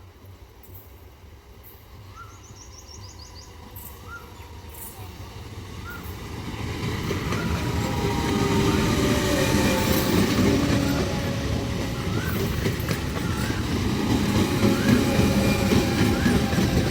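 Indian Railways passenger train approaching, growing steadily louder over the first seven or eight seconds, then running close by with a loud, steady rumble.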